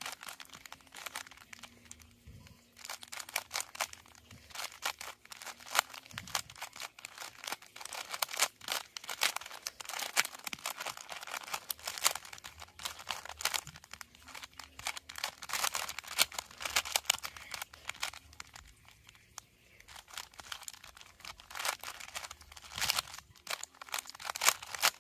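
3x3 Rubik's Cube being turned rapidly during a speedsolve: a dense, continuous run of clicking plastic layer turns, with brief pauses about two seconds in and again about nineteen seconds in.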